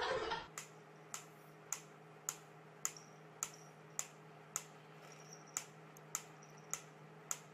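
Wooden pyramid pendulum metronome ticking steadily, a little under two ticks a second, over a faint steady hum.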